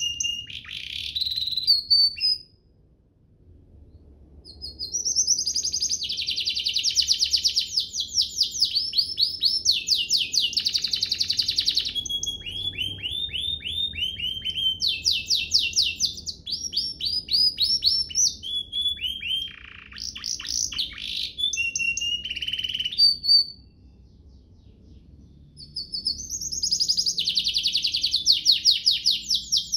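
Domestic canary singing long, rapid trills and sweeping phrases, pausing twice for a couple of seconds.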